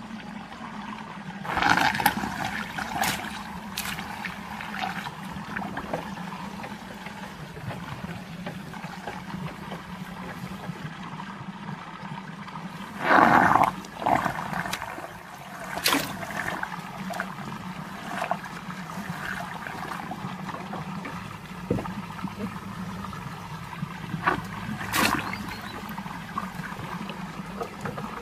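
Water swirling and gurgling down a whirlpool, over a steady low hum, with a few louder splashes, the loudest about 13 seconds in.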